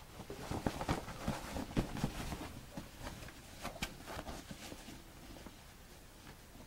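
Denim bag being handled and turned right side out: soft fabric rustling with light taps and brushes, dying away after about four seconds.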